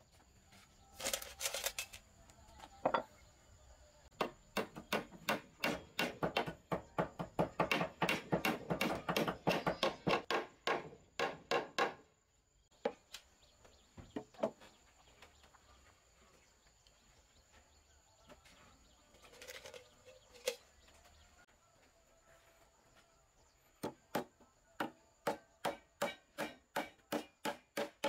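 Claw hammer striking nails into the joints of a wooden table-leg frame: runs of quick taps, about three a second. The taps stop for a long stretch in the middle, with only a few single knocks, and start again near the end.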